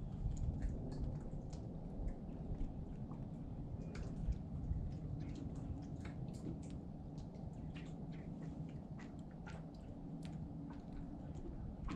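Water lapping gently against a boat hull and dock, with many small irregular wet clicks and splashes over a low steady rumble.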